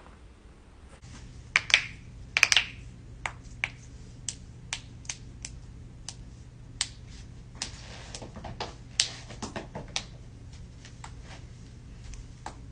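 Human joints cracking: two quick clusters of loud pops about one and a half and two and a half seconds in, then a dozen or more smaller single cracks at uneven spacing.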